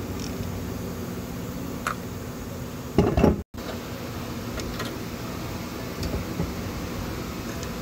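A ratchet wrench being worked on the oil cooler bolt and pulled away: a brief metallic clatter about three seconds in, after which the sound drops out for an instant, then a few light clicks, over a steady low hum.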